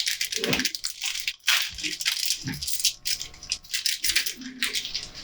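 Small hard plastic and metal computer parts rattling and clicking in quick, irregular clusters as they are handled and fitted during a PC assembly.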